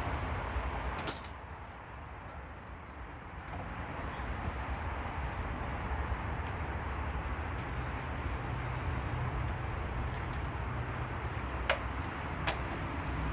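Engine oil draining from a Honda B20 oil pan into a drain pan: a steady pouring sound over a low hum, with a sharp click about a second in and another near the end.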